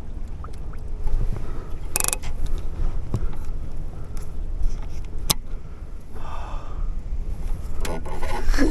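Wind rumbling on the microphone in a small boat, with scraping sounds, a knock about two seconds in and a sharp click past the middle.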